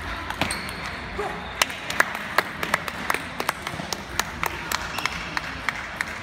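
Table tennis balls clicking sharply off bats and tables in a large hall, a few irregular knocks a second starting about a second and a half in.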